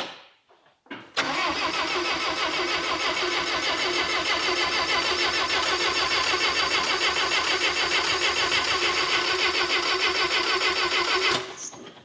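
Bobcat skid steer's gasoline engine being cranked over by its starter for about ten seconds with an even, rhythmic pulse, then stopping abruptly, after a couple of short clicks. It does not start and run properly, which the mechanic puts down to fuel or spark timing being off.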